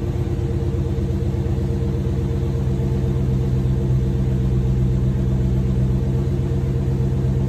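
Dodge Charger Scat Pack's 6.4-litre HEMI V8 idling steadily just after start-up, heard from inside the cabin, its fresh oil already at pressure from starter-only cranking.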